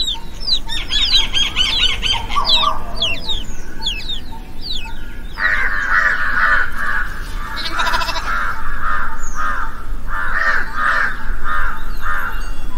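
Birds calling: a run of quick falling chirps in the first few seconds, then repeated calls about twice a second from about five seconds in.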